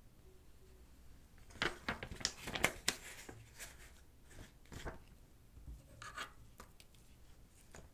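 Close-miked handling of an unboxed smartwatch and its packaging: a quick run of sharp clicks and rustles about a second and a half in, then scattered softer taps and rustles.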